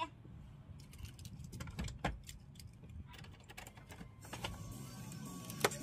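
Car keys jangling with a run of small clicks as a key is worked into the ignition of a 2000–05 Chevy Impala. About four seconds in, a faint steady hum with a thin high tone comes on and holds, with one sharp click near the end.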